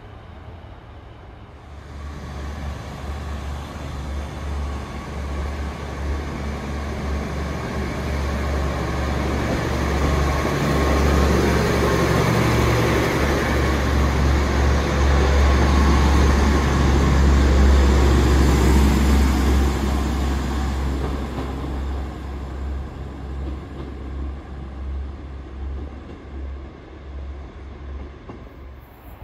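GWR Class 150 Sprinter diesel multiple unit passing close by under power. Its underfloor diesel engines and wheels grow louder as it approaches, are loudest as it goes past, then fade as it pulls away.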